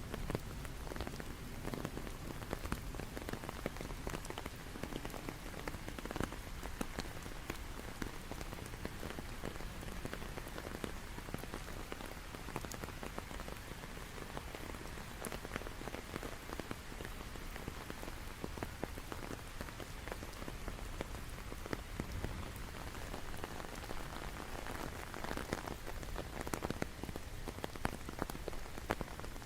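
Steady rain falling, an even hiss dotted with many distinct drop ticks.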